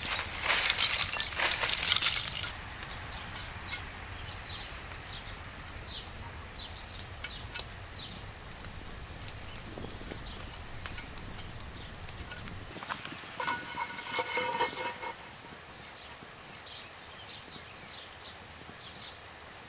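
Wood fire crackling loudly for the first couple of seconds, then birds chirping over quiet outdoor background. About two thirds of the way in comes a brief metallic clatter with ringing: a cast iron pan and its clip-on wooden handle knocking together.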